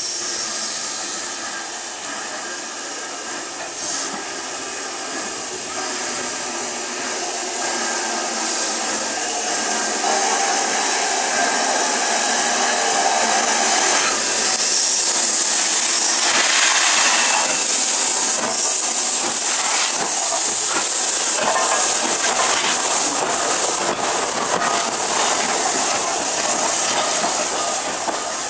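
LNER B12 4-6-0 steam locomotive running slowly past with a steady hiss of steam. The hiss grows louder as the engine comes alongside about halfway through, with scattered knocks as it passes.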